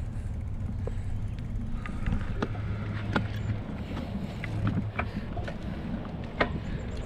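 Bicycles rolling along an asphalt path: a steady low rumble of wind on the microphone and tyres, with scattered light clicks and rattles.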